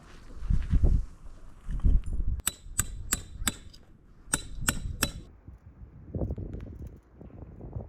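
Seven sharp clicks in quick succession, about three a second, in a group of four and then a group of three, over low thumps.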